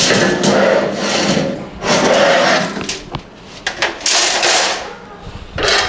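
White metal mesh shoe-rack shelves being slid and dragged over other panels and a woven floor mat, in about four long scraping swishes, with a few light clicks in between.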